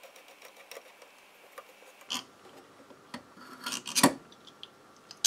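Hands working at the metal head cover of an Ekko wire recorder to get at the read head: faint ticks, then rubbing and scraping of metal parts with a few clicks, the loudest scrape about four seconds in and a sharp click at the end.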